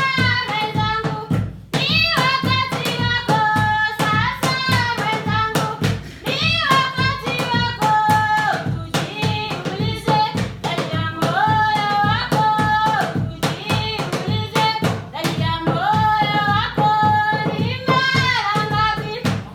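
Music: singing with gliding, repeated melodic phrases over fast, dense hand-drum percussion.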